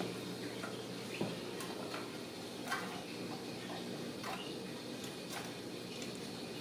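A Ragdoll kitten's claws and paws making scattered light clicks and taps on a tile floor and a sisal scratching post as it plays, the sharpest click a little under three seconds in, over a faint steady hum.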